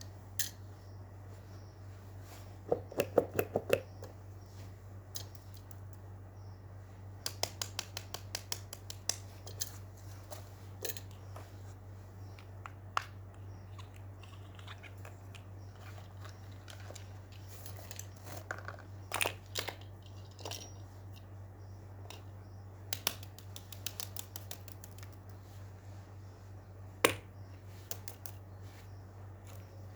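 Fidget toys being handled: runs of small sharp clicks and taps, several a second, with a single louder tap near the end, over a steady low hum.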